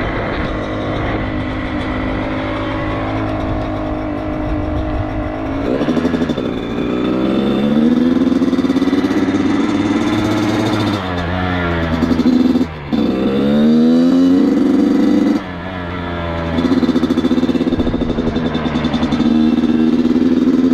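Dirt bike engine heard from the rider's helmet: steady for the first few seconds, then revving up with rising pitch, dropping and climbing again several times as the throttle is worked. Its sound dips sharply for a moment twice around the middle.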